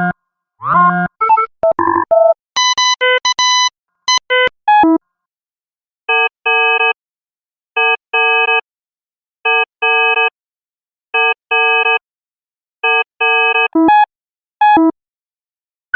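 Science-fiction computer sound effects: a fast run of varied electronic bleeps and tones, then a two-beep electronic signal repeating about every second and a half, with a couple of different blips near the end.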